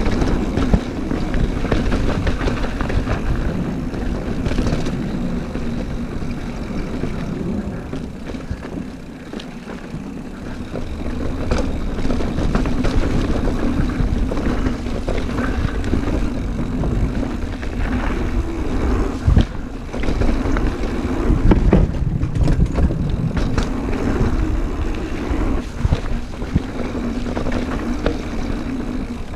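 Wind rushing over the microphone and the rattle of a mountain bike riding fast down a rough downhill jump trail, with scattered knocks from bumps and landings.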